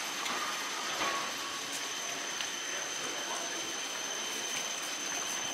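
Steady railway station platform ambience: an even mechanical hiss with a thin, high-pitched whine running through it, and a few faint clicks.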